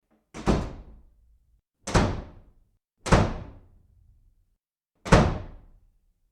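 Four loud, sudden thuds like slams, each dying away over about a second, at uneven gaps.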